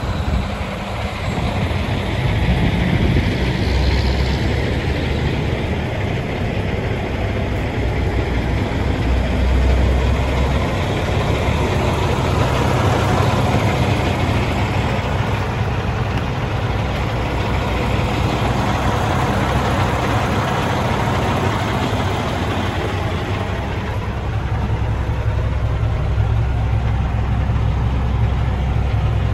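Diesel engine of a 2018 International LT truck idling steadily, a low even engine note with no revving.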